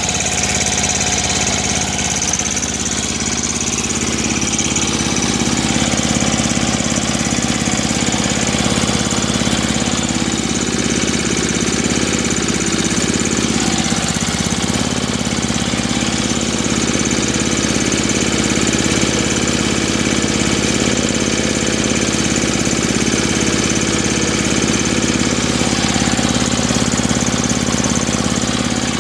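Small single-cylinder engine of an MTD Yard Machines snowblower running steadily, a couple of minutes into a cold start.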